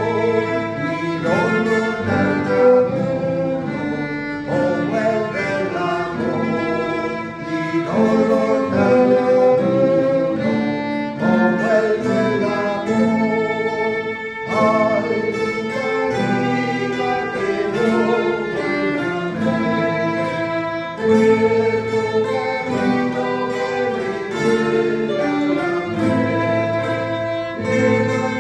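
Small plucked-string ensemble of mandolin-family instruments and classical guitars, joined by a violin, playing a tune together in rehearsal. It is a continuous melody over strummed and picked chords.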